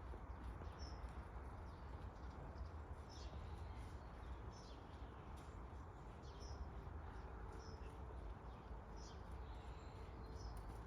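Small birds chirping in short high notes every second or so over a faint, steady low rumble and hiss.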